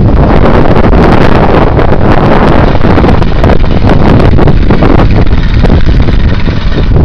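Strong wind buffeting the microphone, loud and constant, with gusty rumbling and crackle that masks any other sound.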